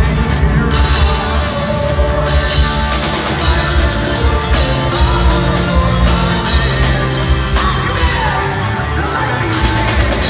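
Progressive rock band playing live and loud: electric guitars, bass, violin, keyboards and drums, with a lead vocal over them.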